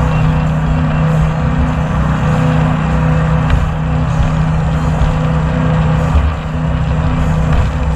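Jet boat engine running steadily under way, a continuous low drone with a rough rumble beneath it.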